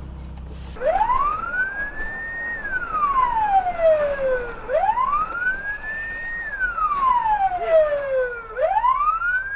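Emergency vehicle siren in a slow wail: each cycle rises over about two seconds and falls over about two, starting about a second in and repeating through the rest.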